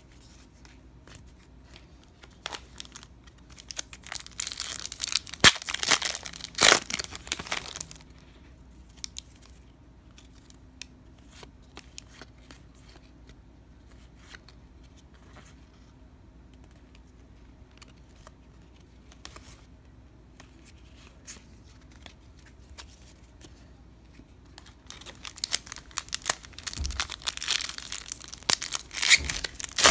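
Trading-card pack wrappers being torn open and crinkled, in two spells of busy tearing and rustling, one about four seconds in and one near the end, with light clicks of cards being handled in between.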